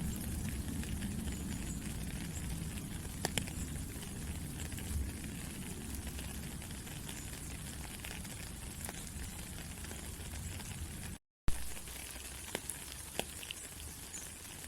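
Steady rain falling, with scattered individual drops ticking sharply. About eleven seconds in, the sound cuts out completely for a moment and comes back with a loud click.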